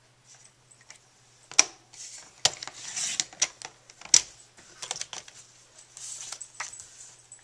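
Fiskars sliding paper trimmer cutting card stock: sharp plastic clicks as the cutting head is handled on its rail, with rasping slides as the blade runs through the paper.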